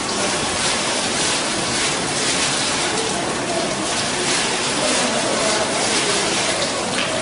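Steady splashing hiss of many water streams falling from a digital water-curtain fountain into its basin.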